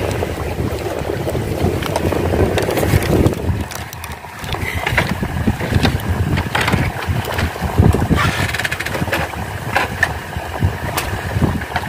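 Sea wind buffeting the microphone in uneven gusts, with a few light clicks from the spinning reel in hand.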